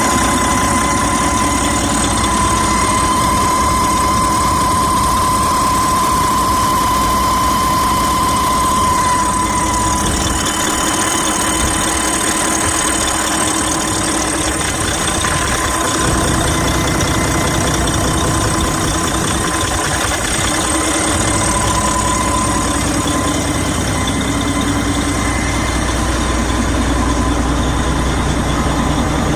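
Detroit Diesel DD15 inline-six diesel engine idling steadily, with a high whine over it that fades about a third of the way in. The engine has a failed turbocharger that is leaking oil.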